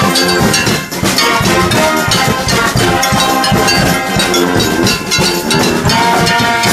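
Live brass street band playing loudly: sousaphones and trombones over bass drum. A sawblade xylophone, a rack of circular saw blades struck as metal percussion, adds ringing metallic notes.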